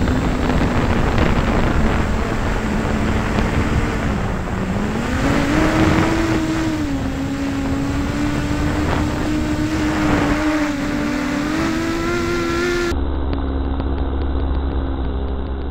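Quadcopter's brushless motors and 6-inch three-blade props running in flight, a steady whine over wind noise. The pitch dips and then rises about four seconds in and keeps shifting a little with the throttle. About three seconds before the end the sound turns duller, with a steady low hum underneath.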